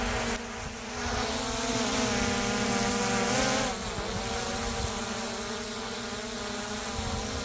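DJI Mini 3 Pro's propellers whining as the small quadcopter hovers and comes down for landing. The buzz climbs in pitch and gets louder from about a second in, then dips and drops back a little before the middle and carries on steadily. A low rumble runs underneath.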